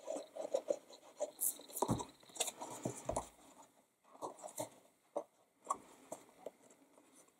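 The sponge tip of a Tombow multipurpose liquid glue rubs in quick small strokes along a cardstock flap. Then come the rustle, light taps and clicks of stiff cardstock being handled and folded into a box, with two dull thumps about two and three seconds in.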